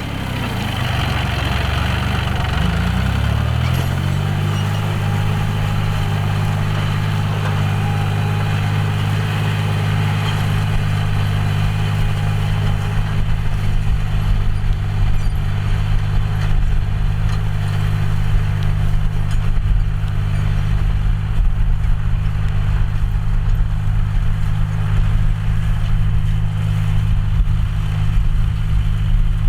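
John Deere 5045D tractor's three-cylinder diesel engine running. Its speed climbs over the first few seconds, then it runs steadily.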